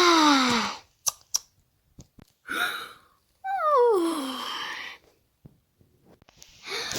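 Ponies yawning: long breathy exhalations, each with a falling, groaning tone. One ends just under a second in, a short breathy puff follows about two and a half seconds in, and a second long yawn with a wavering, falling tone comes around the middle. A couple of short clicks fall between them.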